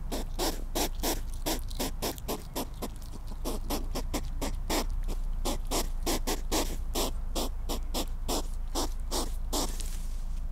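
European hedgehog snuffling as it forages, a fast, even run of short sniffing puffs, about three to four a second, that stops near the end.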